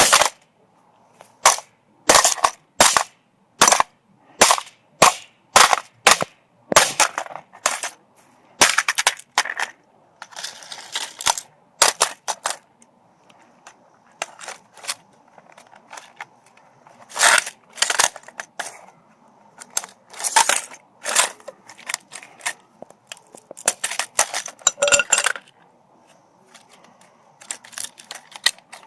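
Hammer blows smashing a cheap alarm clock. A quick run of sharp strikes comes first, about two a second, followed by more irregular blows and longer noisy stretches.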